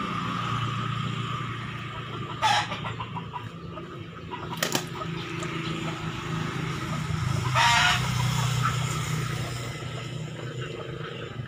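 Chicken calls, with a short squawk about two and a half seconds in and a louder, fluttering call near eight seconds, over a steady low hum. A single sharp click comes a little before halfway.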